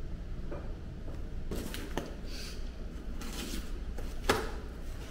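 Handling noises: several short clicks and rustles of objects being moved and opened, over a low steady hum.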